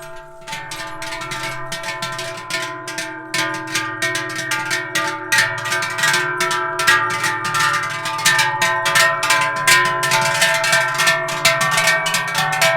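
Many large cowbells clanging together in a dense, continuous jangle, their ringing tones overlapping as the herd or the herdsmen carrying the bells move along. The sound builds over the first couple of seconds.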